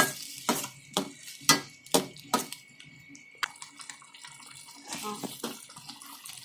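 A spoon stirring and scraping through thick, wet onion-and-masala paste sautéing in a steel kadai. The strokes come about twice a second for the first couple of seconds, ease off, then come again a few times about five seconds in.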